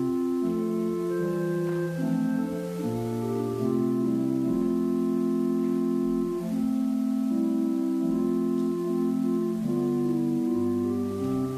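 Organ playing a slow prelude of sustained chords, each held evenly and changing every second or two.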